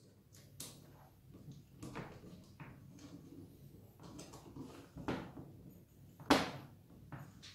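Hands fitting the smallest hinge pin through the bottom shock mount of an RC monster truck's suspension arm: scattered light clicks, taps and rustles of small metal and plastic parts, with sharper knocks about five and six seconds in.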